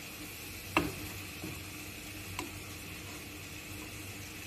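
Shredded chicken and vegetables frying in a pan with a faint steady sizzle, stirred with a wooden spatula that knocks lightly against the pan three times. The loudest knock comes about a second in.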